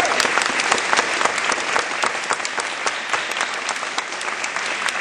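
Audience applauding, a dense patter of many hands clapping that slowly thins out.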